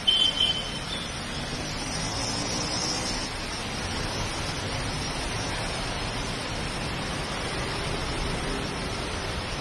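Heavy rain and traffic on a flooded city road: a steady hiss of rain and tyres running through water. Two short, high-pitched horn toots come right at the start.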